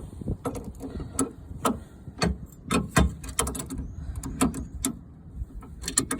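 Hand wrench clicking and clinking against metal hydraulic line fittings, a few irregular sharp clicks a second, as the fittings are tightened.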